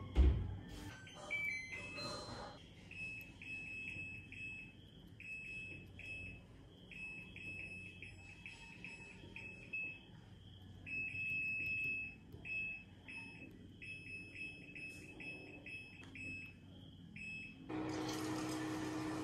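Whirlpool top-loading washing machine: the lid shuts with a thud, then the control panel gives a short high beep at every button press, many beeps in quick runs as the wash cycle is set.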